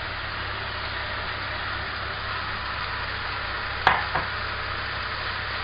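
Sliced peppers and onion frying in hot oil in a pan, with a steady sizzle. Two sharp knocks come about four seconds in, the first the louder.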